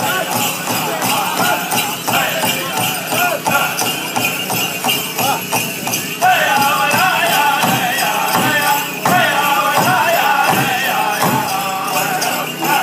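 Powwow drum group singing a men's chicken dance contest song over a steady unison drumbeat, with the dancers' bells jingling. The singing gets louder about six seconds in.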